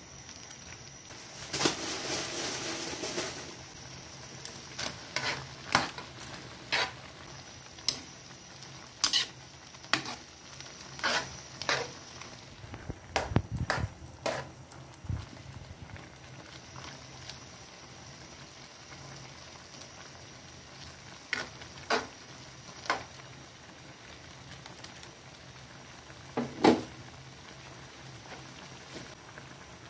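Metal spatula stirring pancit bato noodles in a metal wok of simmering broth, with sharp clacks of the spatula against the pan, many in the first half, fewer later and one loud one near the end, over the bubbling of the simmering broth.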